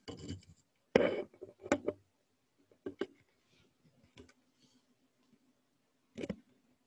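Handling noise from a hand working close to the microphone: several short, sharp clicks and knocks, the loudest about a second in and near the end, over a faint steady hum.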